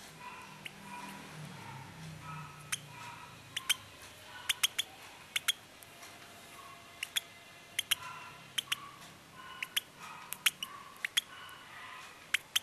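Two-week-old lovebird chick giving short high peeps, with many sharp clicks at irregular intervals from about three seconds in.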